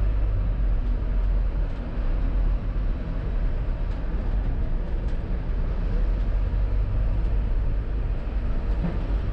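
A moving vehicle's steady low rumble of engine and road or running noise, heard from on board.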